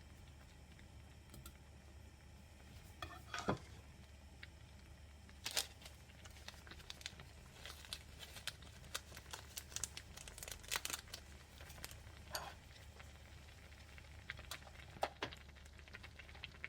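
Crinkling and rustling with scattered small clicks and knocks, over a low steady hum.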